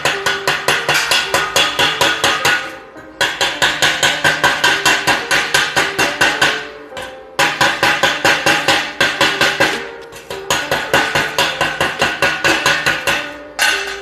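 Chipping hammer rapping on a steel plate to knock slag off freshly laid E7018 stick-welding beads, fast metallic strikes about six a second in runs of a few seconds with short pauses between.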